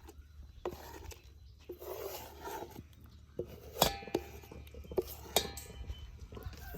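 Kitchen utensils and vessels clinking and knocking as they are handled, with two louder ringing clinks about four and five and a half seconds in.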